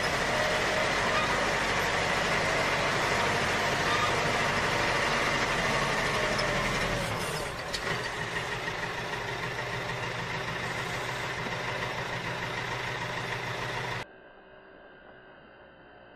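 Heavy diesel excavator engine sound effect running steadily, switched on and cut off abruptly; it drops a little in level about seven seconds in and stops about 14 seconds in.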